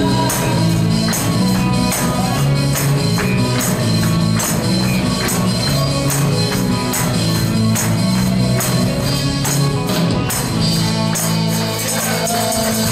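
Live gospel worship band music, with a tambourine jingling on a steady beat over electric guitar and bass.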